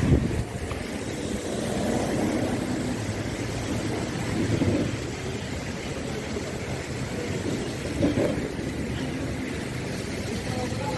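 A motor vehicle's engine running steadily, with brief louder swells about four and a half and eight seconds in.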